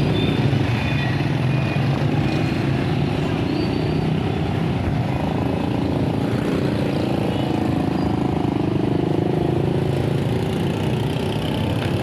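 Motor vehicle engine running steadily amid street traffic, with a few short high tones now and then.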